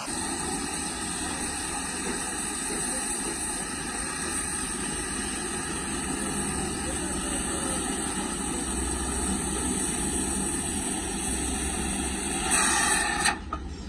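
Steady machine running noise with a low rumble, like an engine. It grows louder for a moment near the end, then cuts off abruptly.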